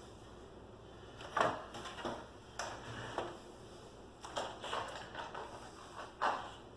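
Irregular knocks and clatters of hand work with tools and screws on a wooden piece, the cordless drill not running.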